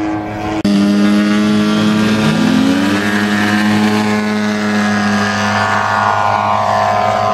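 Model airplane engines running loud and steady. About two seconds in, one engine's pitch climbs, and near the end a higher engine note slides down.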